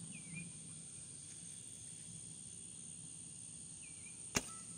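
A longbow shot: a single sharp snap of the bowstring as the arrow is released, near the end.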